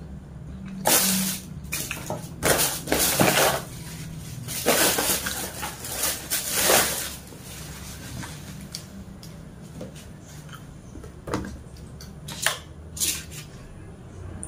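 Paper rustling in several long bursts as a tissue and the food's wrapping paper are handled, followed by a few light clicks from bamboo satay skewers.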